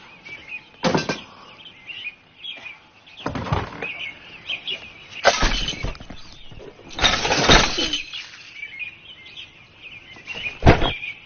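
Cartoon sound effects: a series of about five separate crashes and clatters, like objects breaking, over faint bird chirping.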